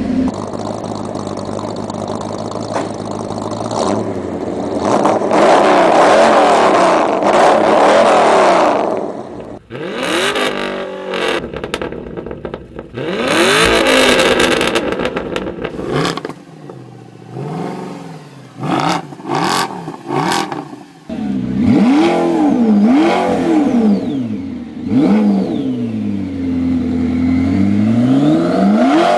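V8 supercar engines revving through the exhaust. A long, loud rev climbs in pitch over the first nine seconds. Then come a string of short, sharp throttle blips, and near the end repeated smooth rev-ups and falls in pitch.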